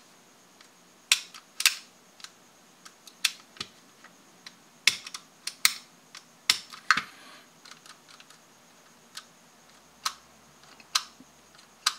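Sharp clicks from a Tokyo Marui Hi-Capa airsoft pistol frame worked by hand, the hammer being cocked and the trigger dry-fired to check its feel for friction. About a dozen clicks come at irregular intervals, some in quick pairs.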